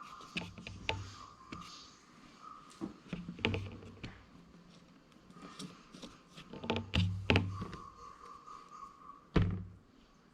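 Irregular knocks and thunks of hands working oil-based plastilina clay and tools on a work table, with a cluster of knocks about two-thirds through and the loudest thump near the end.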